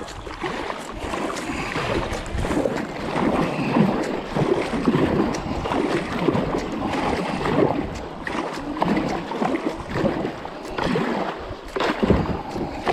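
River water splashing and rushing around a kayak as it moves along, an uneven churning noise that rises and falls.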